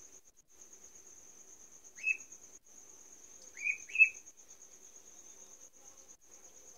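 A duckling gives three short, high peeps, one about two seconds in and two close together near four seconds: the calls of a duckling left alone and frightened without its companion. Under them runs a cricket's steady high-pitched trill.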